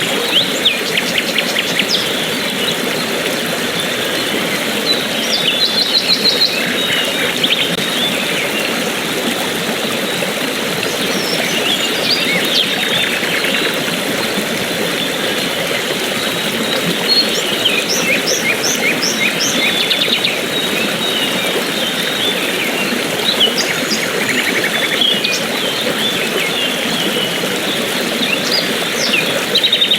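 Steady rush of flowing water from a waterfall or stream, with small birds chirping over it in short calls and quick trills of rapidly repeated notes.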